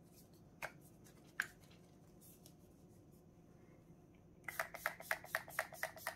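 Pump-mist bottle of ColourPop No Filter setting spray misting the face in a quick run of about a dozen short hissing sprays, about six a second, starting near the end. Before that, two faint clicks.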